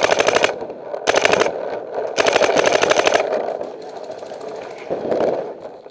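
Paintball marker firing rapid strings of shots, about a dozen shots a second: a string that stops about half a second in, a short burst just after one second, a longer string of about a second beginning just after two seconds, and a brief, weaker burst about five seconds in.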